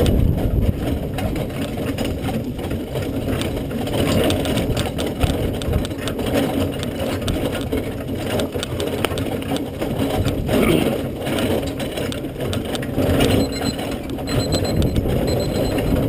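Single-horse marathon carriage rolling along a dirt trail behind a Dutch Harness Horse. The carriage gives a steady rattle, with the horse's hoofbeats mixed in.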